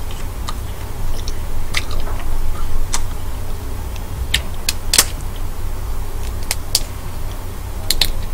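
Shell of a king black tiger prawn cracking as it is peeled apart by hand, in scattered sharp clicks, with a pair close together near the end.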